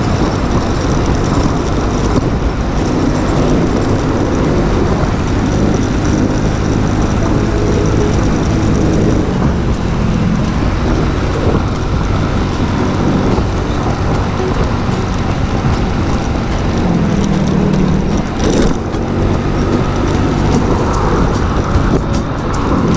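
Motor scooter engine running at cruising speed, with a steady rush of wind on the microphone and road noise from passing traffic.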